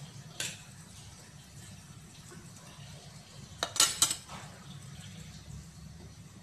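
Kitchen utensils and containers being handled on the counter: a light clink about half a second in and a quick cluster of sharp clinks about four seconds in, over a steady low hum.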